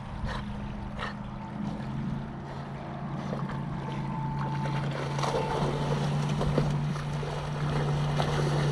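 Steady low hum of a distant motorboat engine over small waves lapping at the shore, with a dog splashing as it swims, growing louder over the last few seconds.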